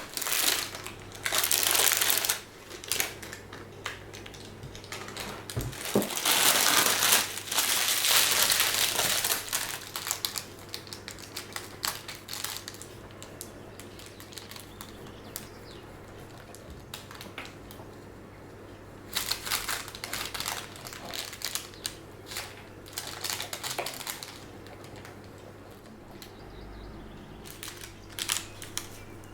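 Crinkling and rustling in irregular bursts, the longest lasting several seconds about six to ten seconds in, over a faint steady low hum.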